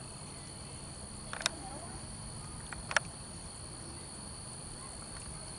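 Crickets trilling in one steady, unbroken high note, with two sharp clicks about a second and a half in and near three seconds.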